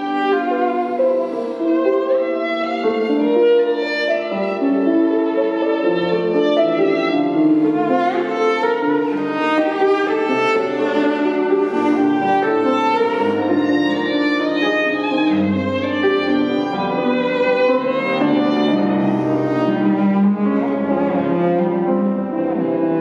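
Piano trio playing chamber music: violin and cello bowing together with a grand piano in one continuous passage without breaks.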